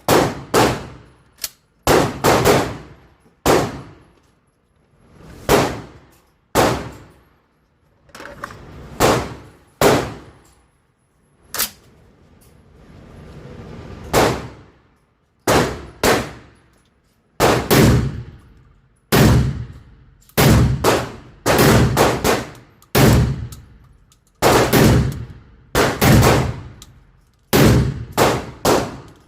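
A shotgun fired shot after shot, each report ringing briefly. The shots come in strings with short pauses, and in the second half they speed up to about two a second.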